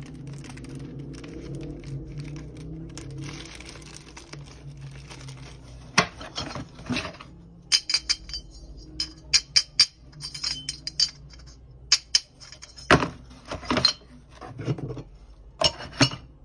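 Hard objects being handled and set down: a few seconds of rustling over a low hum, then a string of sharp clinks and knocks at irregular intervals.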